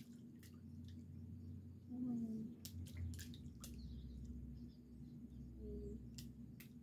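Faint drips and small splashes of hot tub water as people shift in it, heard as scattered short clicks over a steady low hum.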